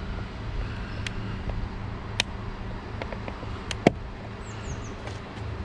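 A few sharp plastic clicks as a screwdriver pries at the retaining tabs of a Volvo S80 door-mirror housing's cap, the loudest just before four seconds in, over a steady low hum.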